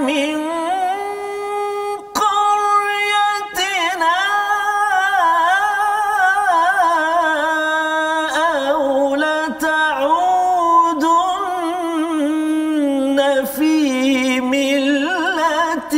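A man reciting the Quran in a slow, melodic chant, drawing out long notes with wavering, ornamented pitch, with short breaks for breath about two and three and a half seconds in.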